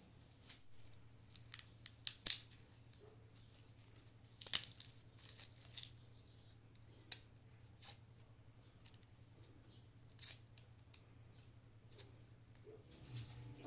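Garlic cloves being peeled with a small knife: irregular short scrapes and crackles of the papery skin, with two louder clicks about two and four and a half seconds in.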